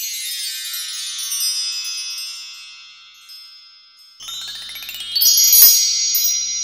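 High, glittering chime sound effects: a shimmer of sparkling tones that fades out over the first three seconds, then a second shimmer comes in about four seconds in, with a bright hit just after five and a half seconds, and keeps ringing.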